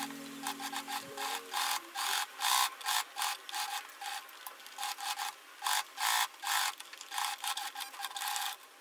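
Domestic sewing machine stitching in short, uneven bursts, a few a second, as fabric is fed under the presser foot.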